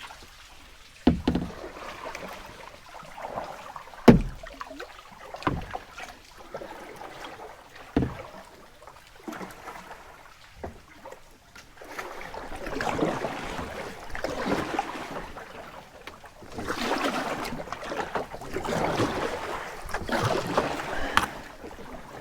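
Kayak being paddled: paddle strokes swishing and splashing through the water, with a few sharp knocks of paddle on hull in the first half. About halfway through come louder, splashier strokes roughly every second and a half.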